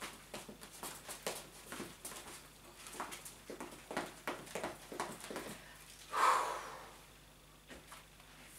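Rustling and light knocks of a person moving about and handling things, with clothing and rubber-glove noise. About six seconds in there is a louder, brief noisy rush.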